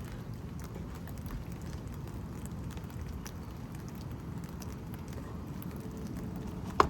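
Steady rain falling during a thunderstorm, with scattered faint drip ticks. There is a single sharp click near the end.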